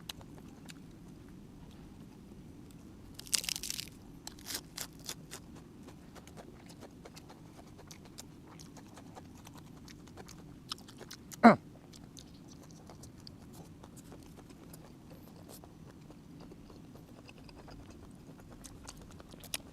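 Close-up eating sounds of a person chewing steamed egg-bearing squid: scattered wet mouth clicks and a short crunchy burst about three seconds in, over a steady low background hum. One much louder short sound comes about eleven seconds in.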